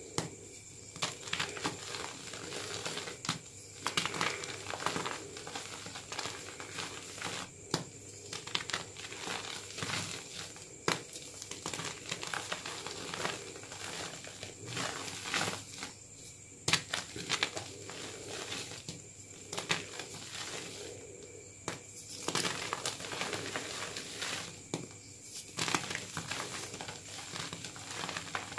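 Chunks of gym chalk being squeezed and crumbled by hand into powder. The result is a dense run of irregular dry crunches and crackles, with a few short pauses between handfuls.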